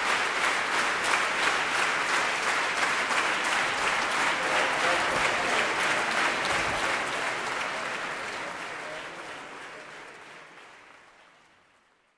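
Concert-hall audience applauding, the clapping falling into a steady, regular beat in the first few seconds. The applause fades out over the last few seconds.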